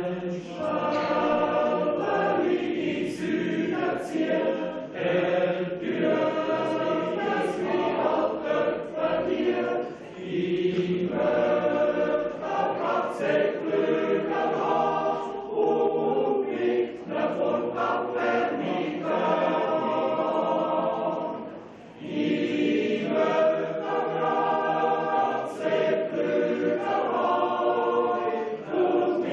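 A large Swiss yodel choir, mostly men's voices, singing a Jodellied in several parts. The singing runs in long phrases, with short breaks between them about ten seconds in and again a little after twenty seconds.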